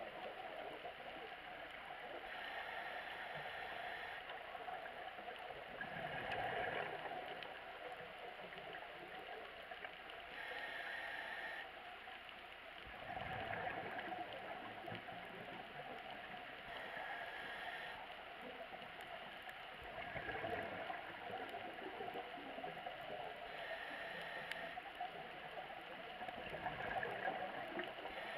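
Scuba regulator breathing heard underwater: a short hiss on each inhalation, then a gurgling rush of exhaust bubbles on each exhalation, repeating about every seven seconds over a steady underwater hiss.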